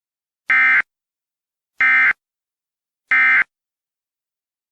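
Three short bursts of Emergency Alert System SAME digital data tones, each about a third of a second long and spaced a little over a second apart: the End-of-Message code that closes an emergency alert.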